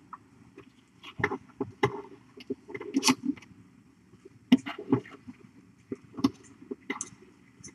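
Kittens scuffling and wrestling on a fluffy bed: an irregular patter of small thumps, clicks and scratching, with the busiest bursts about three seconds in and again about five seconds in.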